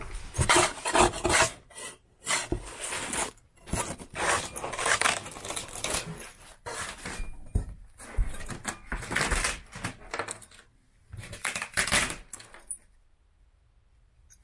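A putty knife scraping and prying up the top layer of rotten, water-soaked plywood flooring in repeated noisy strokes with short gaps between them. The scraping stops about a second and a half before the end.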